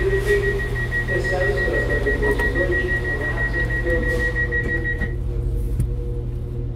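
Cab-less passenger-saloon sound of a stationary CAF Class 196 Civity diesel multiple unit: the steady low hum of its idling underfloor diesel engines and equipment. Over it, a high-pitched rapid electronic beeping is held for about five seconds and then stops.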